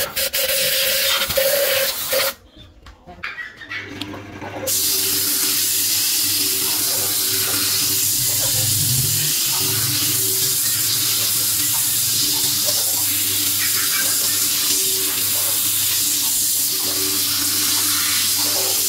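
Wood lathe spinning a wooden vase. A turning tool first scrapes inside the vase's mouth with a fast ticking chatter, and after a short lull comes the steady hiss of sandpaper held against the spinning wood, over the lathe motor's even hum.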